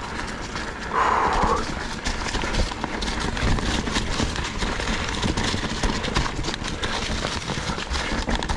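Ibis Ripmo full-suspension mountain bike rattling over rocks: a dense, irregular clatter of knocks from the tyres, frame and drivetrain, over a low rumble.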